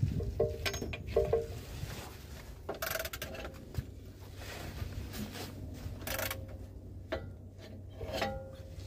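Metal clinking and scraping as a manual transmission is worked into place under a vehicle. There are short ringing clinks in the first second or so, and scattered knocks later. A low wind rumble on the microphone runs underneath.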